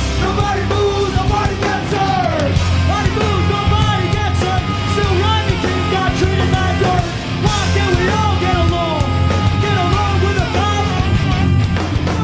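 Live rap-rock band playing, with heavy bass, distorted guitars and drums and a shouted vocal over them.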